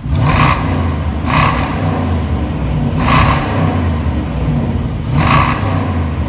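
Jaguar XFR's supercharged 5.0-litre V8 idling, revved in four short blips, about a second in, then near one and a half, three and five seconds, echoing in a multi-storey car park.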